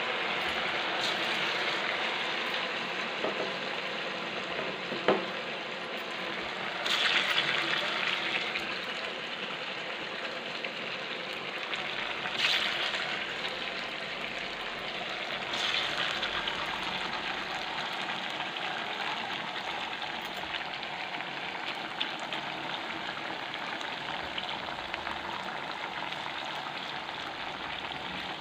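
Pieces of moong dal batter deep-frying in hot oil in a pan, a steady sizzle that swells three times as fresh pieces go into the oil. A sharp click about five seconds in.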